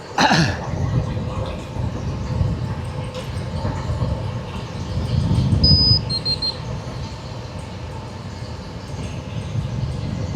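Wind buffeting the microphone and tyre rumble from a road bike riding fast over rolling terrain, a heavy low rush that swells and eases, starting suddenly just after the beginning.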